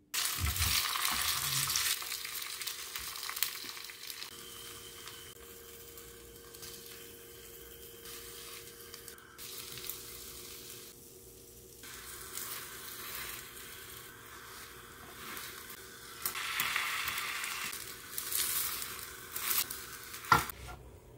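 Beaten egg sizzling and frying in a hot, oiled rectangular egg-roll pan while a spatula pushes and rolls the omelette. The sizzle comes in loud at the start, dies down, and grows loud again near the end, with one sharp knock just before the end.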